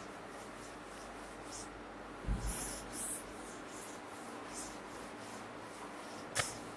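Cloth duster rubbing across a chalkboard in repeated wiping strokes, erasing chalk. A low thud comes about two seconds in and a sharp knock near the end.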